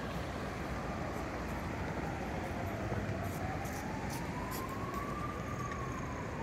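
Emergency vehicle siren wailing, its pitch slowly falling, rising and falling again over several seconds, over steady street noise.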